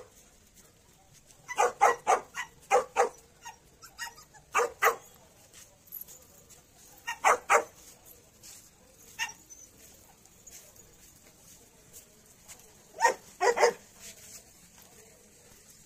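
Dogs barking in short runs of two or three barks, with pauses of several seconds between runs.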